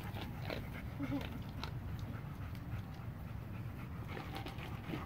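Husky panting at the fence.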